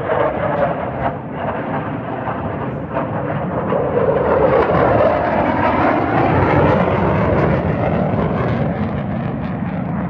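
Military fighter jet making a low pass, its engine noise swelling to a peak about halfway through and then easing off.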